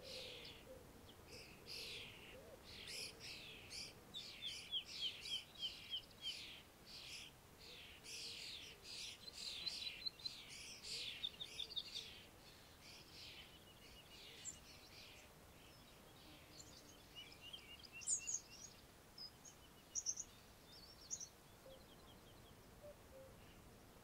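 Small songbirds singing and chirping in an evening chorus: dense overlapping high chirps through the first half, thinning to scattered calls and short rapid trills later.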